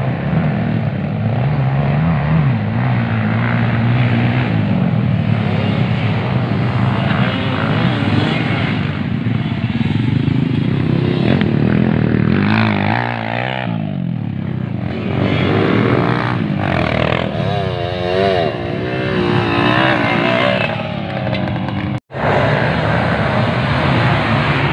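Dirt-bike engines racing past on a dirt track, revving up and down in pitch as the riders work the throttle. The sound cuts out for an instant about 22 seconds in.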